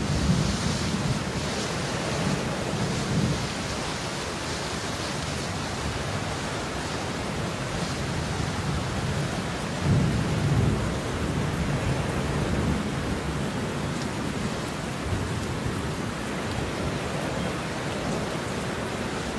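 Steady heavy rain with thunder rumbling low in the background, swelling near the start and again about halfway through.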